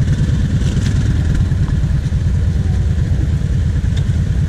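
Kawasaki KVF 750 Brute Force quad's V-twin engine idling steadily with an even, low pulsing beat.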